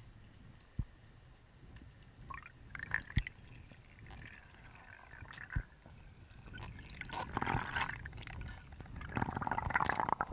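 Water and bubbles heard underwater: a low rumble of moving water with bursts of gurgling and bubbling that grow louder near the end as bubbles pass the camera, and three sharp knocks.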